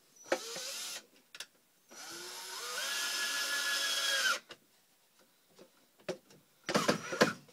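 Cordless drill driving a screw into wood. It gives a short burst, then a longer run about two seconds in whose whine rises in pitch, holds steady and cuts off. A quick run of sharp clicks and knocks comes near the end.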